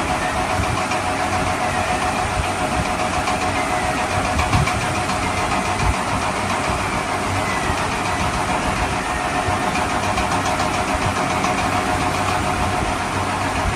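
A vehicle engine running steadily, with a couple of brief knocks near the middle.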